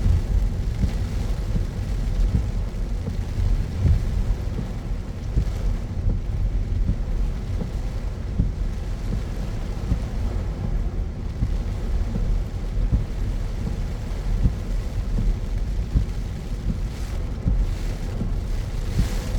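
Car driving on rain-soaked city roads: a steady low rumble of road and engine noise under an even hiss of tyres and rain on wet pavement, the hiss swelling briefly near the end.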